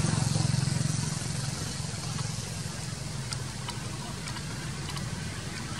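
An engine running steadily with a low pulsing hum, louder in the first second and then a little quieter, with a few faint ticks partway through.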